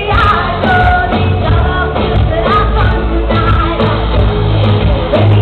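Live pop song: a woman singing into a microphone over a loud band with a heavy bass beat.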